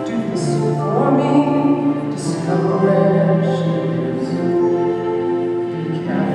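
Musical-theatre singing over an accompaniment, with long held notes and sung consonants.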